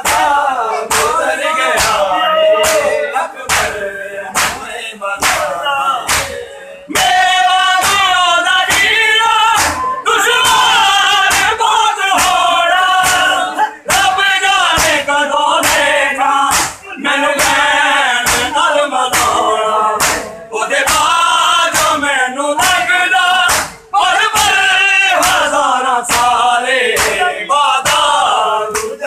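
Men singing a noha (mourning lament) as a group, with rhythmic chest-beating (matam) hand slaps keeping a steady beat of roughly one to two strokes a second.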